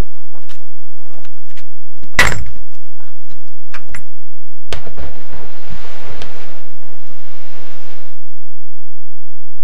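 Scattered clicks and knocks with one heavy thud about two seconds in, then a rushing noise for about three seconds that cuts off.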